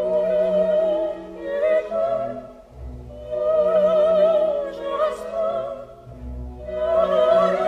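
Operatic singing with a wavering vibrato over an orchestra, in long held phrases with a brief lull near the middle and a dip shortly before the end.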